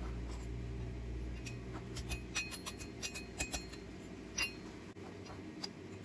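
Light metallic clinks and taps of steel pieces and tools being handled, a quick cluster of them in the middle, some ringing briefly. A low hum underneath fades out about halfway through.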